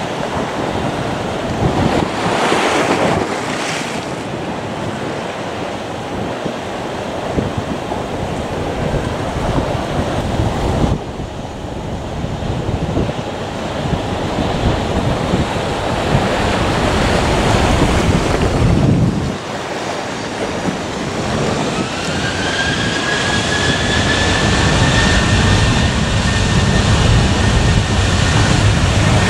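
Wind rushing over the microphone, a loud steady noise. About two-thirds of the way through, an aircraft's engine whine glides up and then holds steady, and a low rumble builds under it as the plane comes closer.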